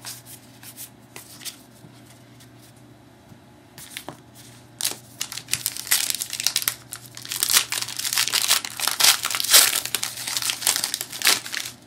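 A trading-card pack wrapper being torn open and scrunched up: a few faint handling clicks, then a dense run of crackling rustles from about five seconds in until near the end.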